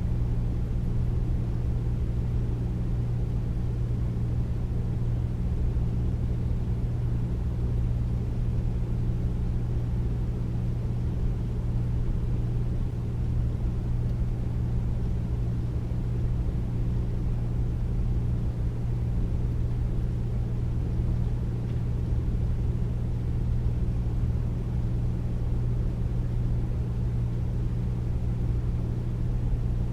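Air conditioner running steadily: a constant deep rush of air with a low hum, with no change in level.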